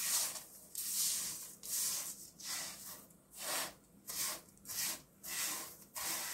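Silicone spatula stirring toasted shredded kadayıf pastry and sugar around a nonstick frying pan: a run of dry scraping strokes, about one to two a second.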